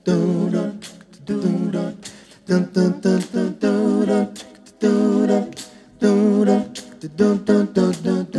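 Several voices singing a cappella in harmony, with no instruments, in short phrases of about a second with brief pauses between.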